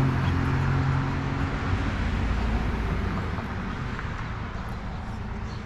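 A motor vehicle going past on the road: a steady engine hum with road noise, loudest at the start, the hum dropping away about two seconds in and the noise fading after it.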